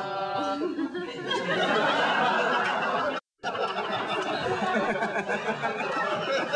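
Comedy-club audience laughing after a punchline. The sound cuts out completely for a moment about three seconds in.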